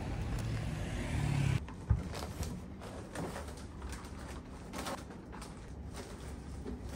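Steady outdoor background rumble that cuts off abruptly, followed by a sharp thump and then soft rustling and small knocks from a tote bag being handled in a quiet room.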